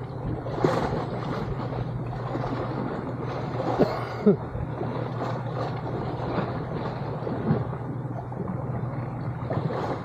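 Seaside water-and-wind ambience: water washing in the shallows with wind on the microphone and a steady low hum underneath. A few short, sharper sounds stand out, one about half a second in and two close together around four seconds in.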